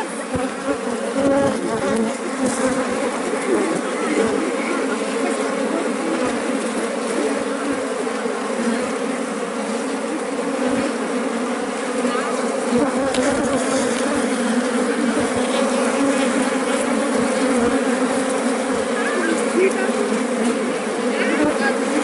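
Honeybees buzzing in a mass at the opening of a wild colony's nest in a brick wall, heard close up: a loud, steady, unbroken hum.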